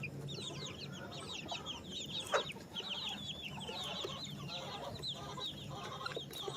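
A flock of chickens: young chicks peeping continuously in rapid high, falling chirps, with lower clucking from grown hens. A single sharp knock about two seconds in.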